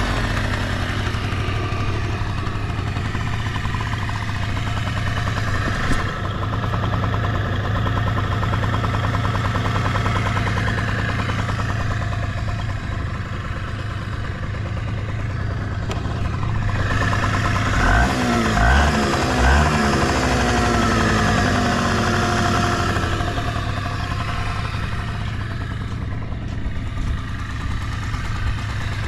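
Suzuki Let's 2 scooter's small two-stroke single-cylinder engine idling steadily, running without abnormal noises. About 18 to 20 seconds in, a few short throttle blips briefly rise and fall in pitch.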